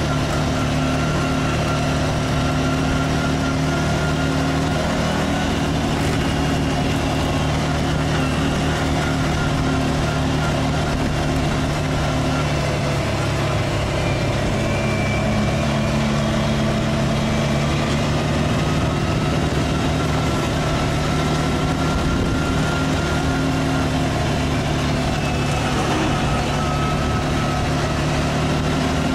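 A vehicle engine running steadily while driving, its pitch dipping and then rising a little as the speed changes, over an even rushing noise.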